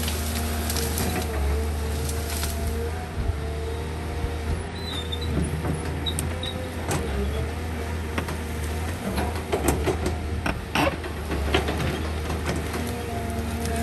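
Cat tracked hydraulic excavator running steadily under load with a constant low engine drone and a steady hum, as its bucket pushes through brush. Branches crack and snap throughout, with a cluster of sharp snaps past the middle.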